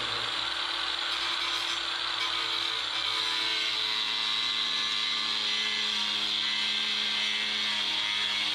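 Power tool with a cut-off wheel running steadily, cutting through the plastic body of a ride-on toy, a continuous high whine with grinding hiss.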